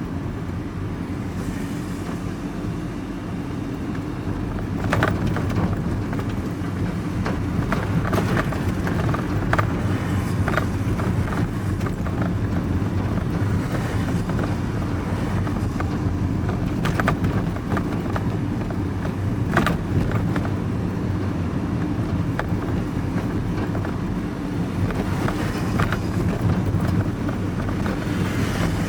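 Vehicle cabin noise while driving: a steady low engine and road hum, with scattered short knocks and rattles.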